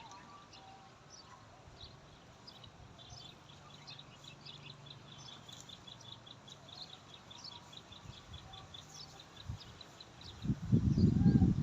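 Small birds chirping in short high calls, with a quick repeated run of chirps through the middle. About ten and a half seconds in, a loud, low, rough noise starts and drowns them out.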